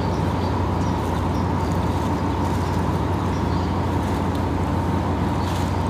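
Steady low machinery hum with a faint constant whine, from the large steel-hulled ship alongside, its engines or generators running.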